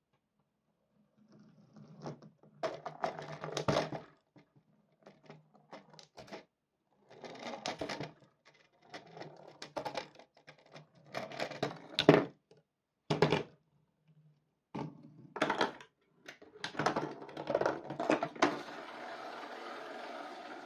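Glass marbles rolling along cardboard tracks of a marble run, in irregular spells of rolling clatter with sharp clicks and knocks as they drop and strike hex nuts and one another. It starts about a second in, and a steady hiss joins near the end.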